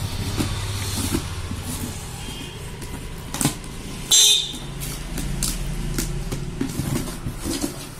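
Cardboard carton being opened by hand: flaps scraped and rustled, with a loud, sharp rip of packing tape about four seconds in. A steady low engine-like rumble runs underneath.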